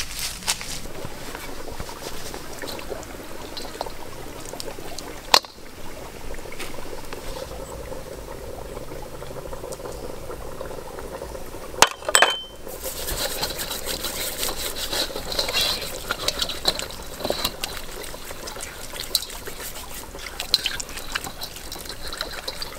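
Water trickling and running steadily, with a few sharp knocks and clicks, the loudest about twelve seconds in.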